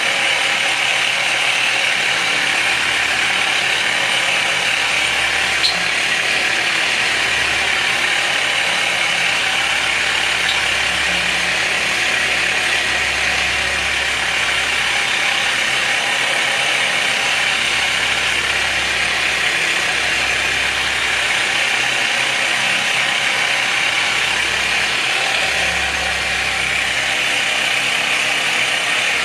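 Handheld electric massager running steadily as it loosens the muscles across the shoulders.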